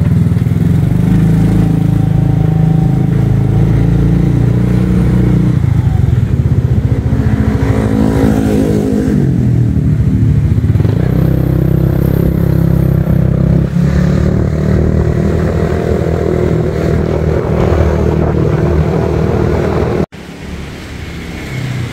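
Motorcycle engine running while riding, its note falling as it slows about eight seconds in and rising again as it picks up speed. The engine cuts off suddenly near the end.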